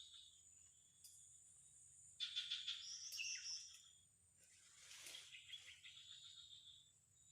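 Outdoor insect and bird ambience: insects shrilling steadily at a high pitch, a louder pulsed bird call about two seconds in lasting just over a second, and a short noisy swish about five seconds in.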